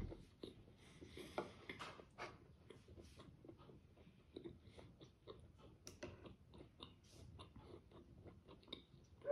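Faint, close-miked chewing of a mouthful of boiled smoked pork, with many small irregular wet mouth smacks and clicks.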